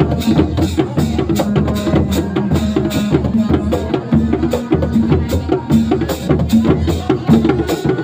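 Sundanese reak ensemble of dogdog hand drums, including a large drum slung from a pole, playing a fast, dense interlocking rhythm of sharp strokes over a steady low boom.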